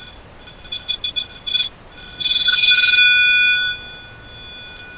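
Electronic beeping: a quick run of about five short beeps about a second in, then one long steady beep of about a second and a half. The beeps come in a pattern likened to Morse code, and one listener takes them for the phone set down on the floor.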